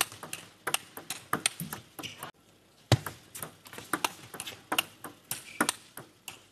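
Table tennis rally: a celluloid ball clicking in quick alternation off the rackets and the table, about three strikes a second. The sound drops out briefly a little over two seconds in, then another rally starts with the same rapid clicking.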